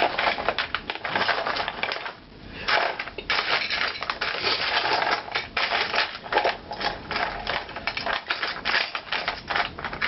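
Hands rummaging through a container of small hard toy pieces: a continuous, irregular rattle and clatter of clicks, with a brief lull about two seconds in.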